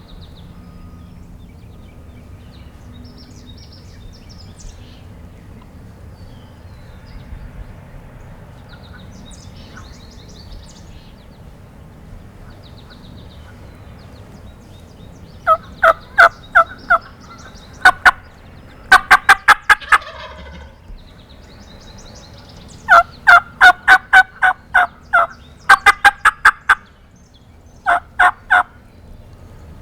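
Turkey calling: from about halfway in, loud runs of four to six sharp, evenly spaced notes, repeated several times, with a quicker rattling burst around twenty seconds in. Faint small-bird chirps come before it.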